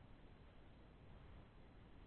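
Near silence: a faint, steady hiss from an action camera's microphone sealed in its waterproof case underwater.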